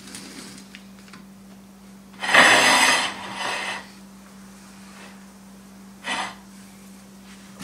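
Glass dishes and a wooden cutting board sliding and scraping on a tiled countertop as they are moved into place. One louder scrape comes about two seconds in, followed by a softer one, and a short one comes near the end, over a steady low hum.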